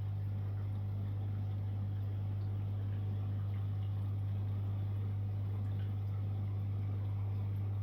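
Aquarium equipment running: a steady low hum with a faint hiss over it.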